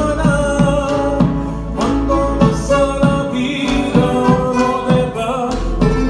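Canarian folk parranda: several acoustic guitars and other plucked string instruments strummed in a steady rhythm, with men's voices singing together over them.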